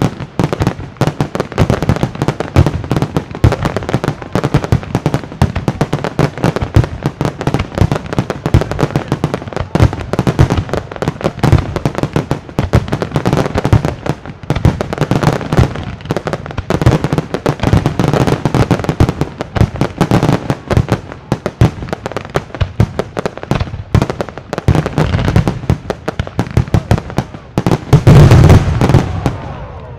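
Fireworks display: a dense, continuous barrage of aerial shell bursts and crackling stars, with the loudest flurry of bangs about two seconds before the end, after which it thins out.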